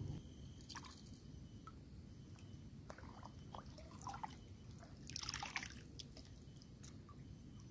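Faint small trickles and splashes of lake water around a wading angler, with one brief louder splash about five seconds in as the fishing pole is cast.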